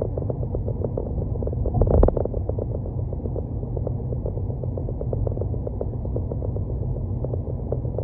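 Car on the move: a steady low rumble of road and engine noise with a fine crackle, and one louder swell about two seconds in.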